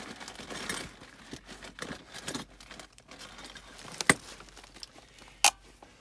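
Handling noises from work on a gas furnace's blower housing: rustling and light scraping, with two sharp clicks about four and five and a half seconds in.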